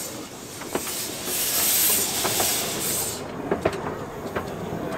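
Small narrow-gauge steam locomotive moving off: steam hisses loudly from the cylinder drain cocks at the front of the engine, then cuts off suddenly about three seconds in. Scattered sharp clanks and knocks sound as it starts to roll.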